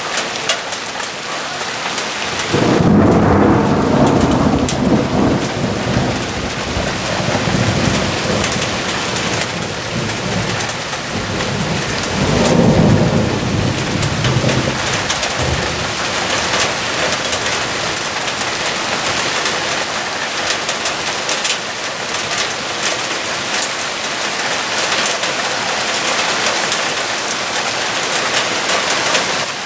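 Heavy rain falling steadily. Two rolls of thunder come through it, a long one about three seconds in and a shorter one about twelve seconds in.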